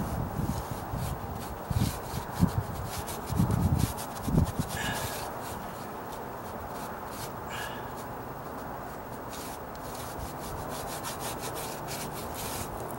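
Paintbrush rubbing paint into rough, sandy stucco in many short repeated scrubbing strokes, with a few dull knocks in the first four seconds.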